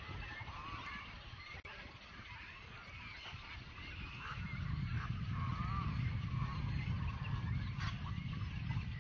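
A colony of waterbirds (cormorants, egrets and herons) calling in the trees, many short squawking calls overlapping without a break. A low rumble builds up from about halfway through and becomes the loudest sound.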